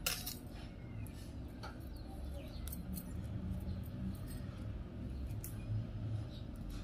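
Plastic wire strands rubbing, squeaking and clicking against each other as they are threaded and pulled tight through knots in a woven plastic bag, with a few sharper clicks, over a low steady hum.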